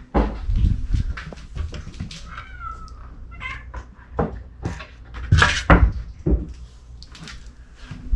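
Chausie kitten giving one short, wavering meow a couple of seconds in, among a string of knocks and thumps, the loudest a little past the middle.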